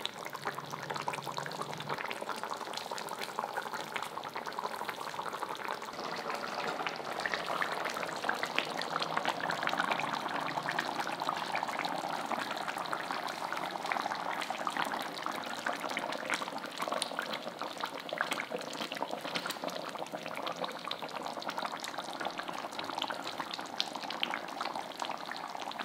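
Thick fish curry simmering in a pot, a steady dense bubbling with many small pops.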